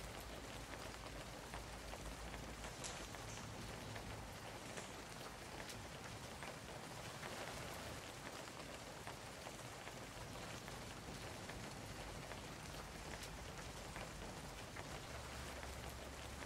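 Steady rain on a corrugated metal shed roof: an even hiss with many faint scattered drop ticks.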